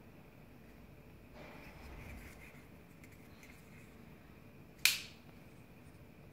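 Benchmade Griptilian 551S folding knife flicked open: one sharp click about five seconds in as the blade swings out and the AXIS lock snaps into place. Before it, a soft rustle of the hand shifting its grip on the handle.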